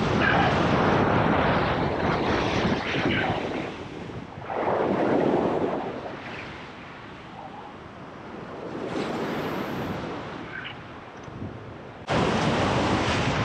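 Ocean waves surging and washing over a rock ledge, with wind buffeting the microphone. The wash swells and fades in surges, quieter in the middle and rising again suddenly near the end.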